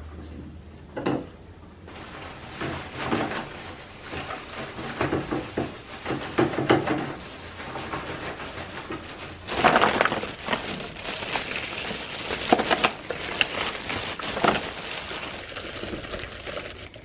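Plastic bags of washi tape rolls crinkling and rustling as they are handled and set into plastic storage baskets, with light knocks of the rolls against the baskets. The loudest bursts of crinkling come about ten and twelve seconds in.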